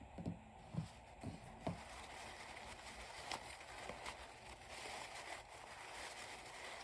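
Faint handling noise: four soft, dull knocks in the first two seconds, then a quiet steady hiss.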